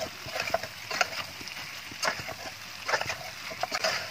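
A spoon scraping and knocking irregularly against a stainless steel pot while pieces of houbara bustard, onions and masala are stir-fried in oil, with a sizzle underneath.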